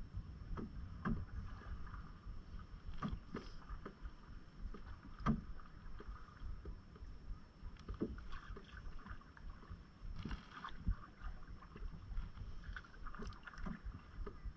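Canoe being paddled: paddle strokes splashing and swishing through the water about every two to three seconds, with sharp knocks and slaps against the hull, over a steady low rumble.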